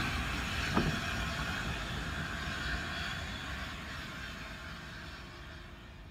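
Steam train noise with hissing steam, fading away, with two sharp clanks in the first second.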